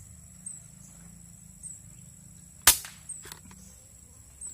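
A single air rifle shot, a sharp crack about two-thirds of the way in, followed by a couple of fainter clicks.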